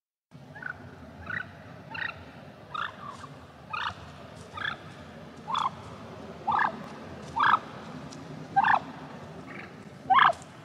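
Turkey calls: a series of about a dozen short notes, roughly one a second, growing louder towards the end, over a steady background hiss.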